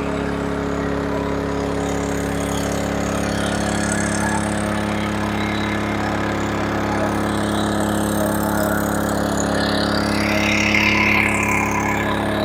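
Westinghouse WH3700iXLTc inverter generator's engine running steadily under heavy load, near its full running output while powering two RV air conditioners and a refrigerator. A brief higher-pitched sound rises over it about ten seconds in.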